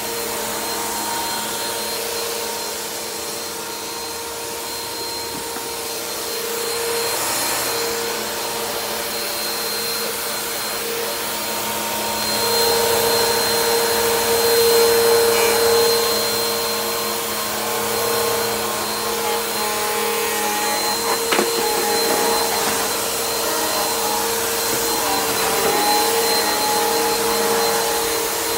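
Bissell PowerForce Helix upright vacuum cleaner running steadily, its motor whine holding one pitch while the loudness rises and falls a little. A single sharp click comes about 21 seconds in.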